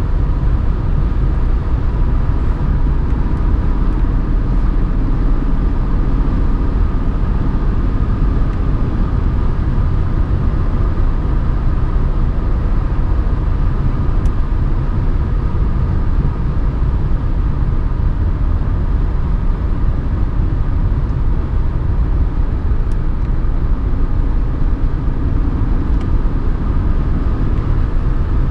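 Mercedes 190D 2.5 Turbo's OM602 five-cylinder turbodiesel running steadily at a road cruise, heard from inside the cabin with road noise, a steady low rumble without change.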